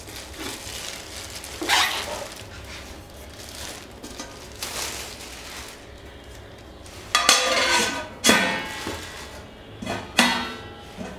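Bergner triply stainless steel kadai and its lid being handled, giving scattered metal clinks and knocks. The loudest, briefly ringing clanks come about seven to eight seconds in and again near ten seconds.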